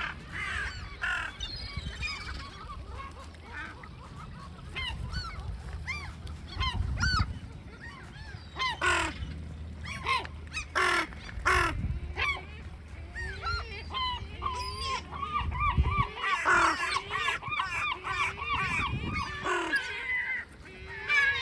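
Seagulls calling, many overlapping calls, with a rapid run of repeated calls about three quarters of the way through.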